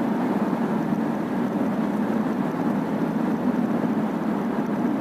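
Steady rumble of a car driving through a long road tunnel: tyre and engine noise with no change in pitch or level.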